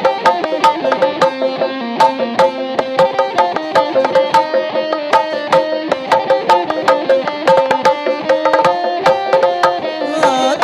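Sundanese reak/benjang ensemble playing: a nasal melody of held, ornamented notes from a tarompet (reed shawm) over quick, steady strokes of dogdog and barrel drums, with gongs.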